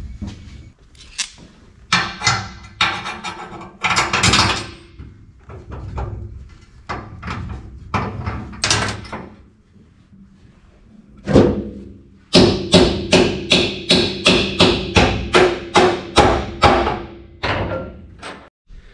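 Background music with a percussive beat, quickening to about two strokes a second in the later part.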